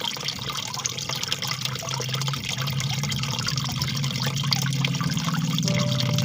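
Water trickling and splashing steadily, a continuous bubbling patter, with a low droning tone underneath.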